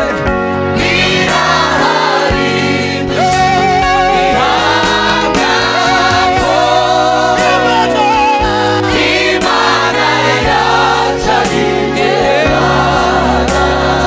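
A Rwandan gospel worship team singing together into microphones, several voices in harmony with vibrato, over instrumental backing with sustained bass notes and a steady beat.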